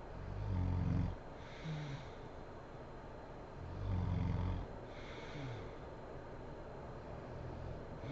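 A sleeping woman snoring: two rough snores about three and a half seconds apart, each followed by a short sound that falls in pitch.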